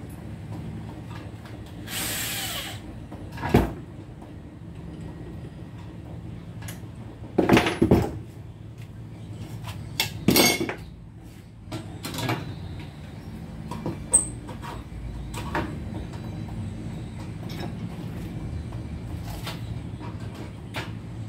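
Tools and metal window-frame parts being picked up, set down and knocked against a workbench: a string of separate sharp knocks and clatters, loudest a little before the middle, over a steady low hum, with a short hissing burst near the start.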